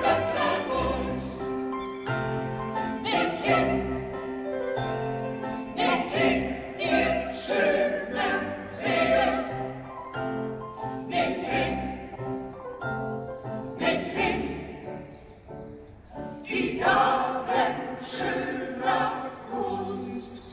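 Mixed choir singing a classical-style piece in full voice over instrumental accompaniment, with low bass notes recurring underneath. The music drops back briefly about two-thirds of the way through, then swells again.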